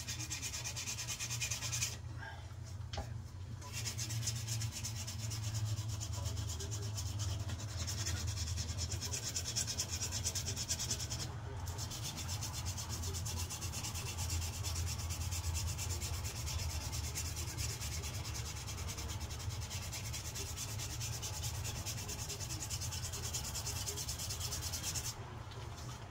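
Hand-sanding a knife clamped in a vise with 150-grit sandpaper: quick back-and-forth rubbing strokes, pausing briefly about two seconds in and again near the end, over a steady low hum.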